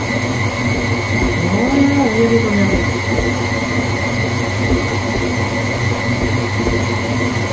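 Stand mixer's motor running steadily at speed with a steady high whine, its beater kneading soft brioche dough in a steel bowl.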